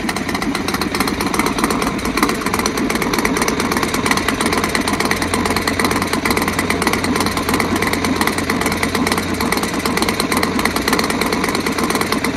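Motorcycle engine sound effect running steadily, with rapid even firing pulses.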